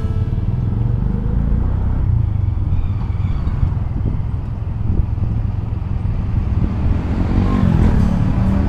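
Motorcycle-sidecar tricycle riding along a street, heard from the sidecar: a steady engine and road rumble with wind noise, growing louder for a moment near the end.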